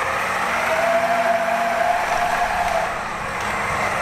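Electric remote-control tracked aircraft tug pulling a light plane by its nose wheel: a motor whine rising slightly in pitch over the steady rolling noise of its tracks.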